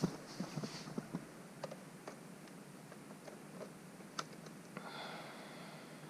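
Irregular light clicks and taps of laptop keys and touchpad, with a brief soft hiss about five seconds in.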